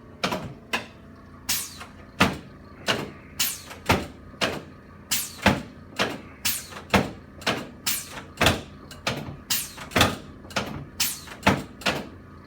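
A run of about twenty sharp knocks, one roughly every half second to second, spaced slightly unevenly and of varying strength.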